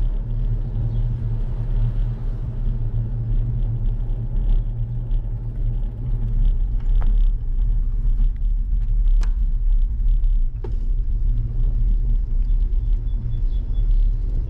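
Steady low rumble of a bicycle ride picked up by a bike-mounted GoPro: tyres on the road and vibration through the mount, with wind on the microphone. A few short sharp clicks or rattles break in around the middle.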